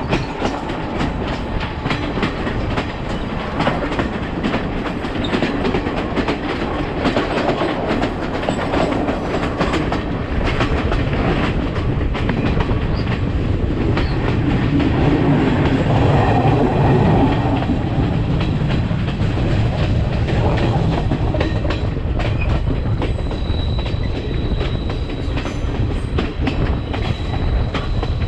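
Sri Lanka Railways passenger train running along the track, a continuous rumble with its wheels clicking over the rail joints.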